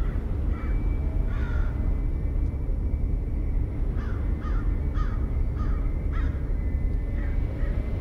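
Crow cawing, with a run of about six short caws a little over half a second apart in the second half, over a steady low rumble.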